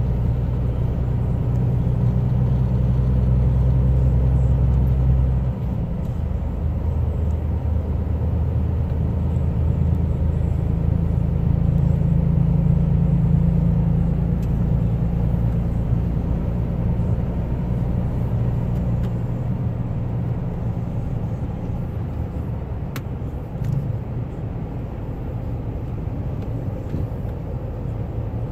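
A motor vehicle's engine running steadily with a low hum; its note shifts and drops a little about five seconds in.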